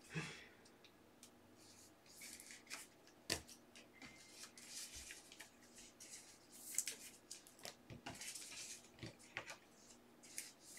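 Faint rustling and light clicks of trading cards and plastic card holders being handled and set down, with one sharper click about three seconds in.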